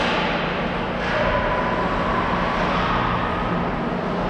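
Ice hockey rink ambience during play: a steady hum of arena noise with faint distant voices, and a couple of short scraping sounds near the start and about a second in, typical of skates or sticks on the ice.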